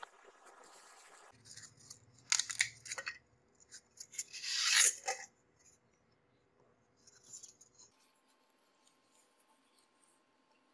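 Expanded polystyrene foam rubbing and squeaking as cut foam pieces are handled and pulled apart, in scratchy crackling bursts, the loudest about four to five seconds in. A faint low hum runs underneath for most of the first eight seconds.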